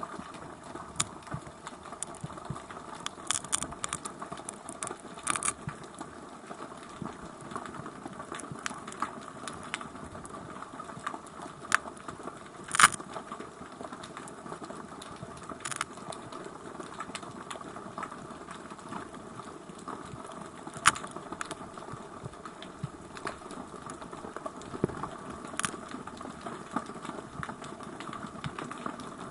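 Underwater sound as a camera in its housing picks it up: a steady hiss and hum with many scattered clicks and ticks, the sharpest click about 13 seconds in.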